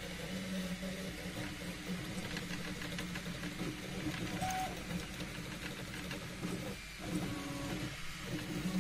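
Stepper motors of a desktop 3D printer whining as the printer moves its print head and bed, the pitch shifting from move to move. There are two brief pauses near the end.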